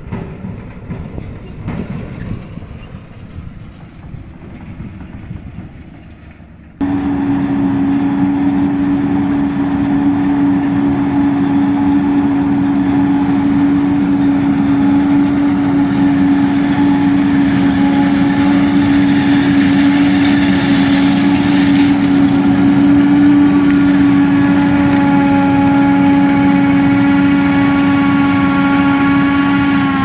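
A tractor and forage wagon driving over stubble. About seven seconds in, this gives way suddenly to a John Deere 7750i self-propelled forage harvester chopping maize: a loud, steady whine at one constant pitch as the machine runs at working speed.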